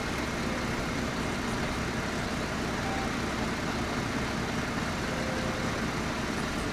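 Fire truck engine idling, a steady low hum with no change in pitch.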